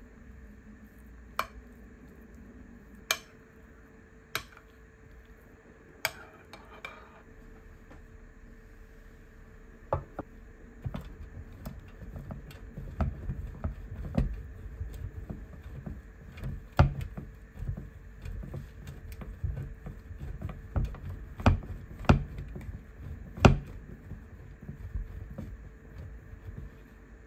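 A metal spoon clinks sharply against a glass baking dish four times while mashed potato is spread. From about ten seconds in, a block of cheddar cheese rasps against a stainless-steel box grater standing on a wooden board, a continuous rough scraping broken by frequent sharp knocks.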